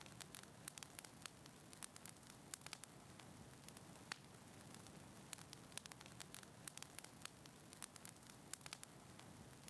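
Fireplace fire crackling faintly: irregular sharp snaps and pops, a few a second, over a soft steady hiss.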